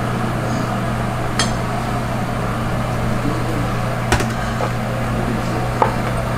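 Steady machine hum of kitchen equipment, with three short, sharp clicks spread through it as metal tongs knock in a plastic mixing bowl of chicken gizzards being coated in batter and flour.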